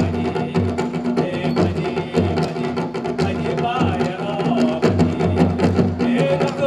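Folk dance music with drums beating about twice a second, sharp clacks, and a wavering melody over a steady low note.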